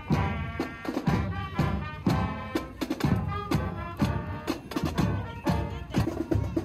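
Marching band playing as it passes: brass, including sousaphones, over a steady drum beat of about two strokes a second.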